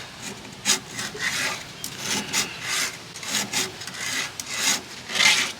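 Chainsaw chain being hand-filed, a file rasping across the cutter teeth in repeated short strokes, about two a second.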